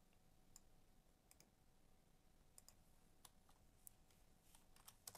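Faint, scattered clicks of a computer keyboard and mouse over near silence, a few at a time and more of them near the end.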